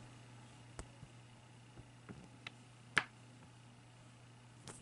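Quiet room tone with a faint steady hum, broken by a few small handling clicks; the sharpest comes about three seconds in.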